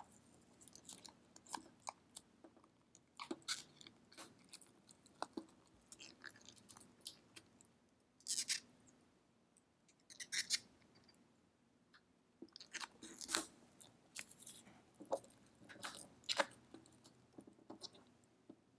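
Sprayed-on Plasti Dip rubber coating being peeled and stretched off by hand: faint, irregular sticky crackling and crinkling as the film pulls away and tears, with a few louder crackles in the middle.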